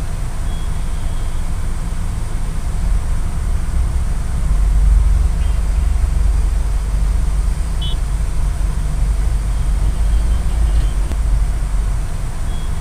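Steady low rumble of a moving vehicle, with a few faint, brief high-pitched tones here and there.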